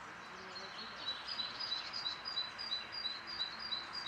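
A songbird singing a rapid repeated two-note phrase, high and low notes alternating about four or five times a second, starting about a second in. Under it runs a steady background hiss of forest ambience.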